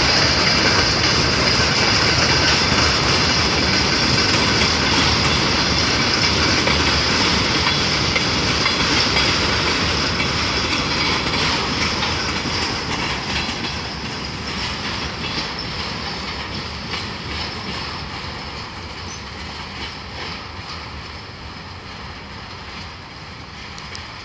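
Freight train of covered hopper wagons rolling past on the rails: a steady rumble of wheels with a high ringing tone above it. About halfway through the last wagon goes by, and the sound fades as the train pulls away, its wheels clicking over the rail joints.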